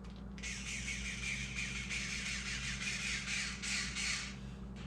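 A scratchy scraping or rubbing noise, starting just after the beginning and stopping shortly before the end, over a steady low electrical hum.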